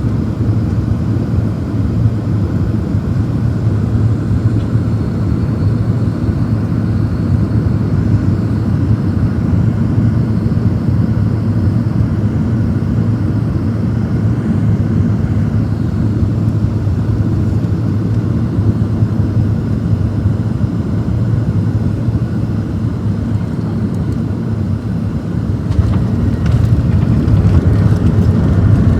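Boeing 737-700 cabin noise: a steady low rumble of engines and rushing air, heard from a passenger seat, growing louder over the last few seconds.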